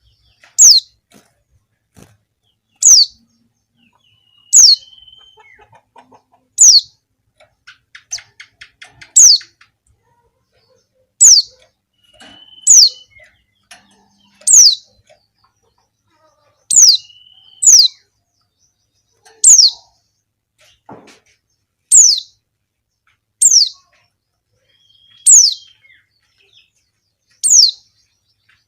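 Female white-eye (pleci) calling: a short, high note that falls in pitch, repeated about fifteen times, one every one to two seconds, with a few faint softer whistles between. This is the female's call that draws males.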